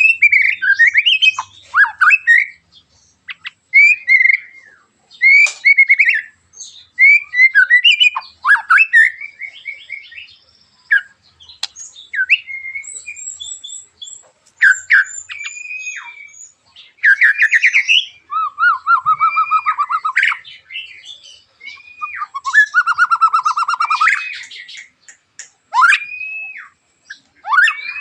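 White-rumped shama (murai batu) singing a fast run of loud whistled phrases and sharp glides, broken by harsh buzzing rattles about two-thirds of the way through and again later. These are the sharp, harsh 'tembakan' bursts prized by Indonesian shama keepers.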